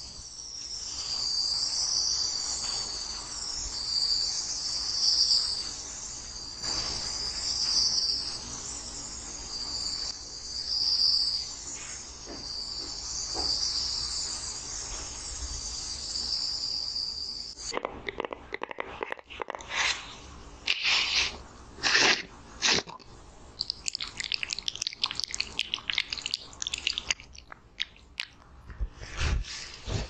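A small handheld blue-lit electric skin-care device gives a steady, high-pitched hiss-like whir that swells and fades, then cuts off suddenly a little past halfway. After it, hands tap and rub over a silicone mat slick with skincare product, making irregular sticky clicks and rubbing sounds.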